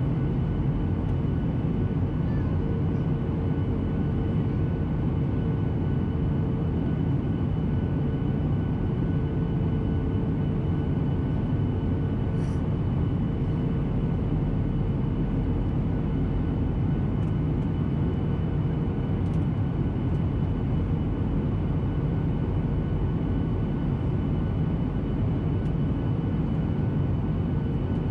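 Steady engine and airflow noise of a Boeing 737-800 heard inside the cabin beside the wing. A low rumble runs with a faint steady whine over it.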